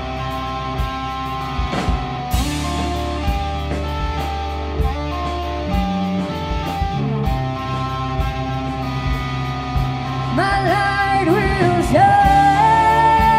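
Rock band playing live: electric guitar over bass and drums. About ten seconds in, a lead line enters, bending between notes, then holds one long note near the end.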